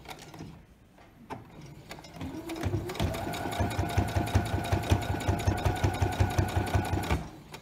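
Electric home sewing machine starting up about two seconds in, its motor whine rising, then running steadily and stitching a seam with a quick, even needle rhythm, and stopping shortly before the end.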